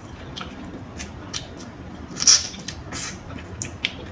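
Large cooked shrimp being peeled and eaten by hand: short crackling snaps and clicks of the shell coming away, with mouth sounds of chewing, the loudest snap about two seconds in.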